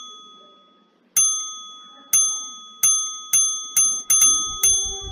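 A bright bell-like ding sound effect struck again and again, about eight times, each ring dying away, the dings coming faster and faster. About four seconds in, low beats and a lower held note of music join in.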